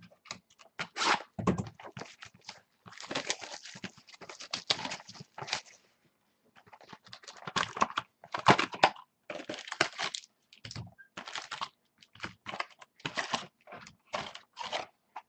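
Plastic shrink-wrap being torn and crinkled off a cardboard trading card box, with quick taps and knocks of the box being handled and opened.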